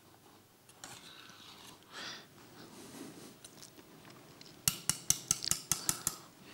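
A stirring spoon scraping around a stainless steel saucepan of thickening cream, then knocking quickly against the pot, about eight sharp knocks in a second and a half near the end.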